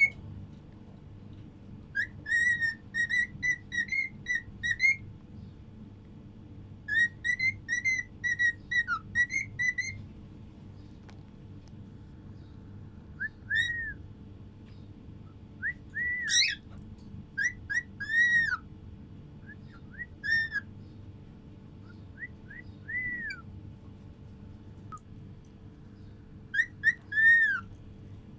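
Cockatiel whistling: two runs of quick repeated chirping notes in the first ten seconds, then single arched whistled calls every second or two, the loudest near the end.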